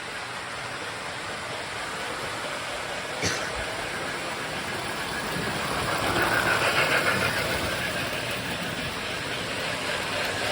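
Toy electric train running on its track: a steady rushing noise that swells a little past the middle, with one sharp click about three seconds in.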